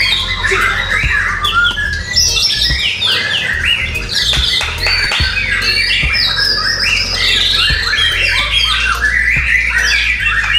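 Several white-rumped shamas (murai batu) singing at once in a song contest: a dense, unbroken stream of quick, varied whistles and chattering phrases that overlap one another. A steady low hum runs underneath.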